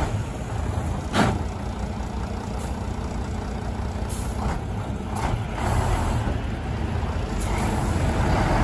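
MAN 26.414 dump truck's diesel engine running, with a short sharp air hiss about a second in and a few fainter hisses later, typical of the air brakes. The engine note builds through the second half.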